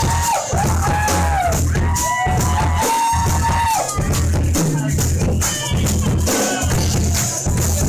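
A jam band playing live on electric guitars, bass and drums, with a steady bass pulse, ringing cymbals and a high melodic lead line that bends and slides in pitch.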